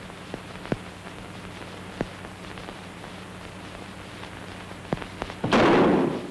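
Old optical film soundtrack hiss with a steady low hum and scattered crackle clicks, then a loud burst of noise lasting under a second near the end.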